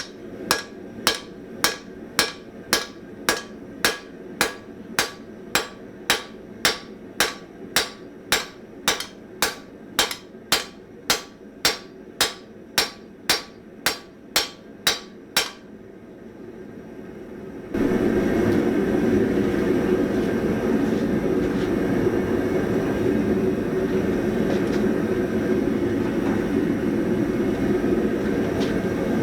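Hammer blows on hot spring steel at the anvil, about two strikes a second for some fifteen seconds, forging a chamfer into the blade of a set of anvil shears. The blows stop, and about two seconds later a steady rushing noise starts and runs on, louder than the hammering's background.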